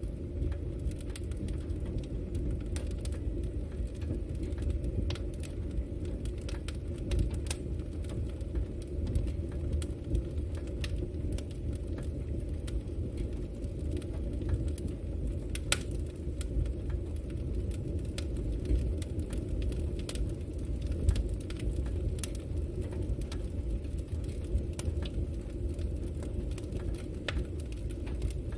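Campfire burning: scattered sharp crackles and pops from the burning wood over a steady low rumble.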